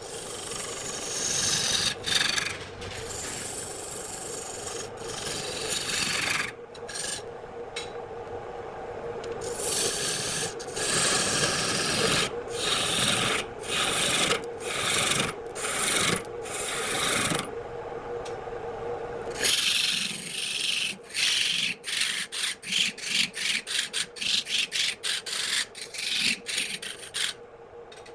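Wood being turned on a lathe: a cutting tool scraping the spinning wood in passes that stop and start, over a steady hum. About two thirds of the way through, the hum drops away and the scraping turns into many short, quick strokes.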